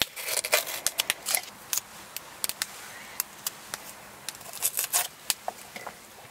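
Knife slicing pieces off a yellow bell pepper held in the hand, a run of crisp, irregular clicks and snaps as the blade cuts through the pepper.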